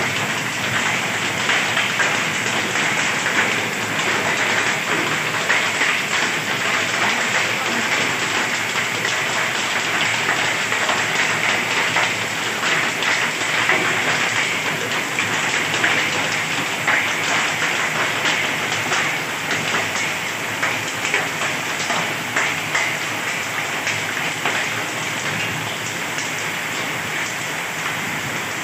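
Heavy rain falling steadily, a dense hiss thick with the patter of individual drops.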